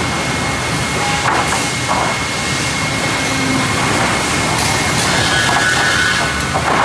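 Sawmill edger line running: a steady loud machine din with a constant high tone, and several short wooden knocks as boards move over the steel infeed rolls.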